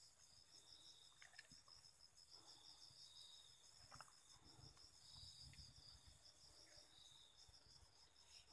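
Faint insect chirring: a fast, evenly pulsing high trill, with a second steadier tone just below it that swells and fades every couple of seconds. A few faint taps at about one second and about four seconds in.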